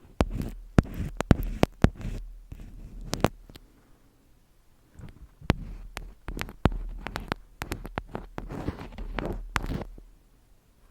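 Close-miked ASMR handling sounds: sharp taps and clicks at an irregular pace, with short scratchy, rustling passages in between, over a faint low hum.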